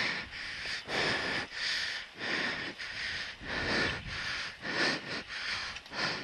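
A person breathing hard, in rhythmic breaths roughly one a second.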